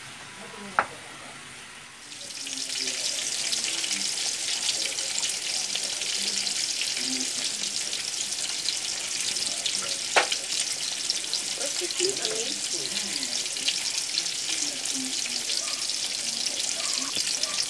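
Striploin and ribeye steaks frying in hot oil in a pan, with a loud, steady sizzle and crackle that starts about two seconds in. Before that, vegetables are stirred in a pan with a wooden spatula, with one sharp knock. A second sharp tap comes near the middle.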